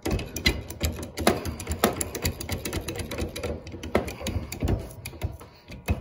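Hand-pumped hydraulic crimping tool being pumped, a run of irregular clicks and clacks with a few louder knocks, as its die presses another pass onto a tin-plated copper 1/0 eyelet terminal to flatten a high spot.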